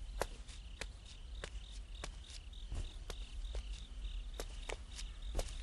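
Crickets chirping steadily in a night-time ambience, with scattered sharp clicks or taps a few times a second over a low rumble.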